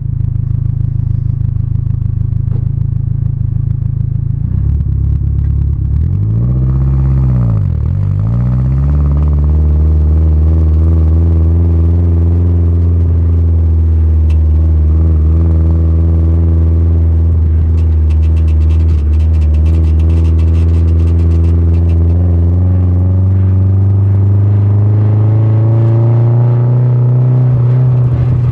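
Turbocharged SR20DET four-cylinder engine of a Nissan S14 running through a decatted 3-inch exhaust with a single silencer, a steady low drone. About seven seconds in its pitch dips and comes back up; it then holds steady and climbs slowly near the end.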